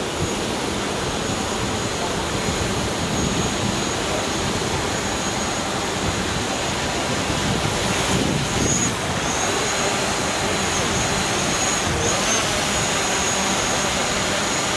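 Quadcopter drone's propellers running with a steady high whine that wavers briefly a couple of times as it manoeuvres low overhead, over the constant rush of river rapids.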